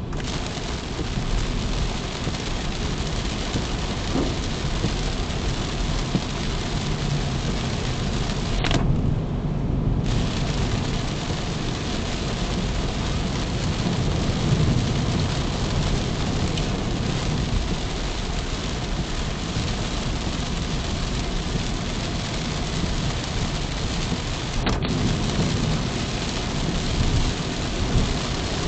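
Steady cabin noise of a car driving at about 60 km/h on a wet road, picked up by a dashcam's built-in microphone: a constant hiss of tyres on wet tarmac over a low road and engine rumble. The hiss briefly thins for about a second around nine seconds in.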